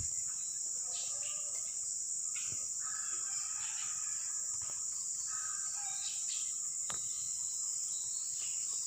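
Steady high-pitched insect chorus, with faint shifting calls lower down and a single sharp click about seven seconds in.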